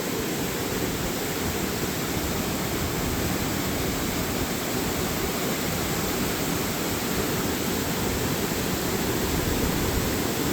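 Waterfall rushing, a steady, unbroken wash of falling water.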